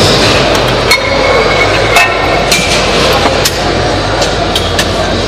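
Eleiko competition weight plates being loaded onto a barbell sleeve: sharp metal clanks with short ringing as the plates knock into place, the loudest about one and two seconds in, over a steady hall hum.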